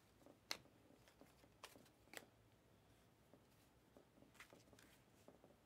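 Near silence, with the faint slides and a handful of soft clicks of glossy Panini Mosaic trading cards being flipped through by hand.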